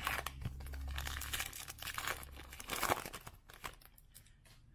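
A trading card pack's wrapper crinkling and tearing as it is ripped open by hand: a run of crackles, the loudest about three seconds in, dying away near the end.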